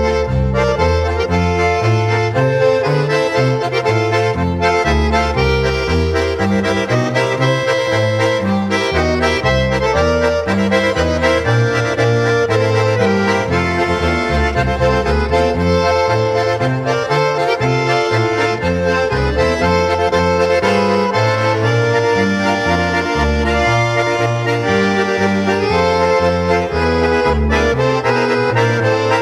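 Instrumental background music with a bass line that steps steadily from note to note.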